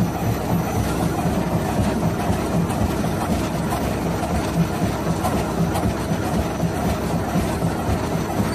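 ShengBaoTe SBT-620 fiber and fabric chopping machine running, its feed conveyor carrying fabric scraps into the cutting blade: a steady mechanical rumble with a fine clatter.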